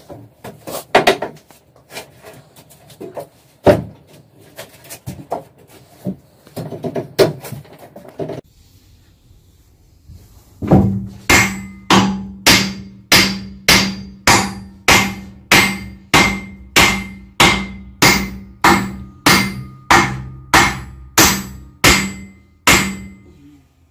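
A hammer striking metal: scattered knocks at first, then a steady run of about two ringing blows a second for some twelve seconds.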